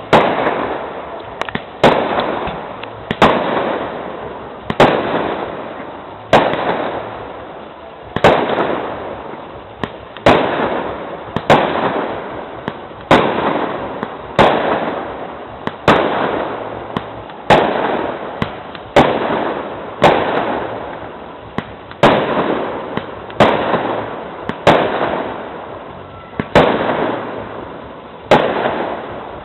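Aerial firework shells bursting in a steady sequence, a loud bang about every one and a half seconds, each trailing off in a long rolling echo, with smaller pops between some of the bangs.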